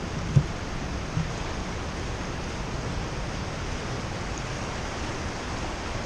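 Rogue River whitewater rushing around a raft as a steady wash of noise. A short low thump comes about half a second in, and a fainter one just after a second.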